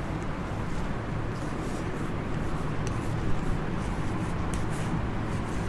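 Steady background noise of a room recording: a low hum under a hiss, with a few faint scratchy ticks.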